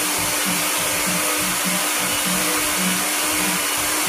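Electric countertop blender running steadily, liquefying mango pulp, bananas, water and yogurt into a smooth juice.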